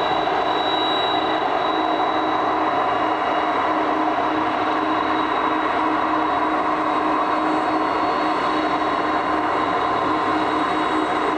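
Boeing 747-400's four General Electric CF6 turbofan engines running at taxi power: a steady jet whine with several held tones over a constant rushing noise.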